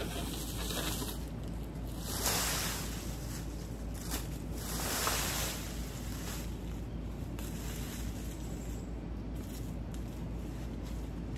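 Plastic leaf rake dragging storm-fallen leaves and small branches across bare ground in a few separate sweeps, the loudest about two and five seconds in, over a steady low rumble.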